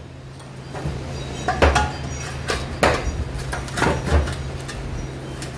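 Irregular sharp metal knocks and clanks, about five of them, from exhaust pipe and muffler parts being handled and set in place. Under them runs a steady low electrical hum.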